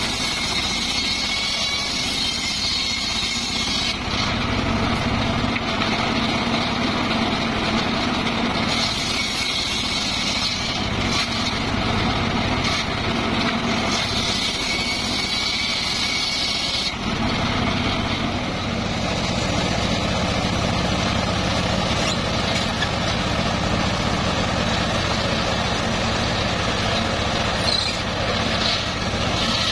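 Homemade table circular saw running steadily while ripping teak boards, the blade's cutting adding a loud, hissing whine over the machine's drone in three stretches during the first half. From about seventeen seconds in, the saw runs on without that cutting noise.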